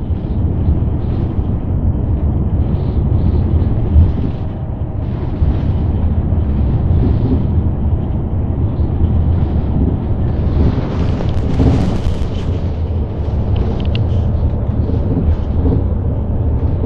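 City bus engine and road noise heard from inside the passenger cabin: a loud, steady low rumble, with a short rise in hiss about eleven seconds in.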